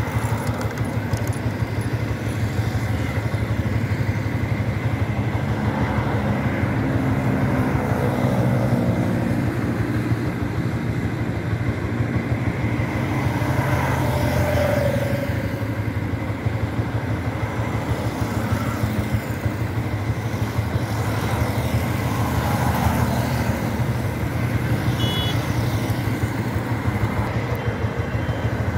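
Motorcycle engine running steadily under way, with road and wind noise from riding.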